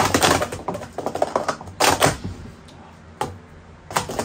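Wooden sport-stacking cups clattering in quick succession as they are stacked and brought down on a mat, then a pause broken by two single knocks about three and four seconds in.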